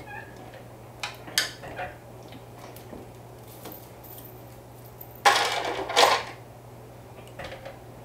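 Industrial flatbed sewing machine turned slowly by hand at its handwheel, stitching a curve one stitch at a time: small clicks of the needle and mechanism over a low steady hum, with a louder pair of metallic clattering noises about five to six seconds in.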